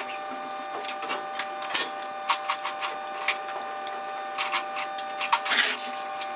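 Irregular sharp metallic clicks and taps of small parts being worked by hand in an oil filter housing, over a steady hum.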